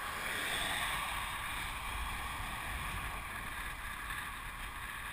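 Steady rush of wind over a hand-held camera's microphone as it is carried on a moving bicycle, swelling slightly about half a second in.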